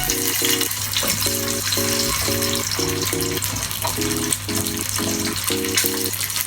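Background music of short repeated chords over the steady sizzle of eggs frying in hot oil in a pan.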